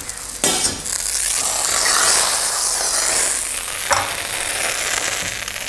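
Butter sizzling in a hot frying pan: the sizzle swells up about half a second in and then holds steady, with a single click near four seconds in.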